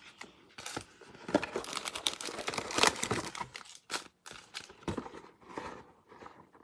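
Hands pulling foil-wrapped trading card packs out of a cardboard Panini Prizm Draft Picks box: foil wrappers crinkling, with irregular taps and scrapes of cardboard, loudest about three seconds in.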